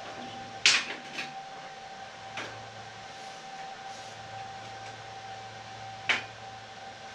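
Sharp metallic clanks of steel parts being handled and set down on a metal fabrication table: a loud one just under a second in, lighter knocks after it, and another loud one about six seconds in, over a steady high hum.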